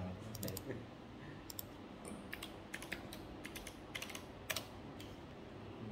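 Typing on a computer keyboard: irregular key clicks, some in quick runs of several presses, with pauses between.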